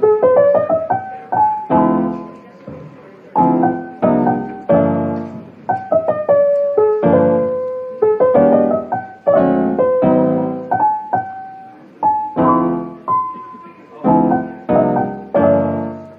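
Background piano music: chords struck one after another, each dying away, with a melody of single notes above them.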